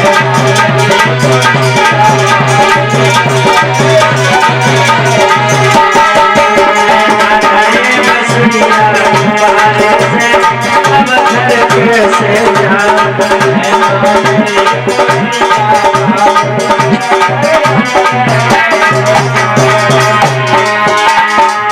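Instrumental music with a steady beat of shaken rattles and drums under a sustained melody. A deep low drum part drops out about six seconds in and comes back near the end.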